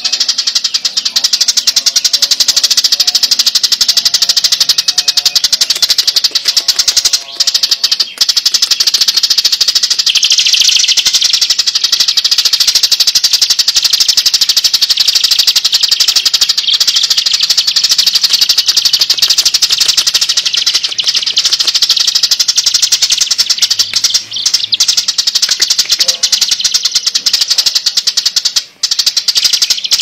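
Eurasian tree sparrow giving a loud, unbroken, very rapid chatter of harsh chirps: the agitated 'fighting' call, with only a few brief breaks.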